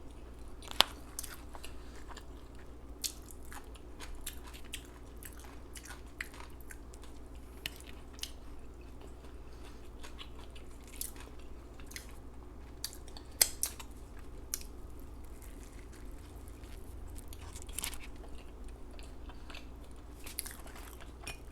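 Close-miked chewing and lip smacking, with many scattered sharp mouth clicks and a few louder crunchy bites.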